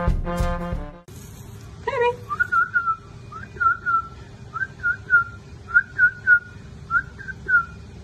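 Brass music cuts off about a second in. It gives way to someone whistling short, swooping chirps in little groups of two or three, repeated over and over.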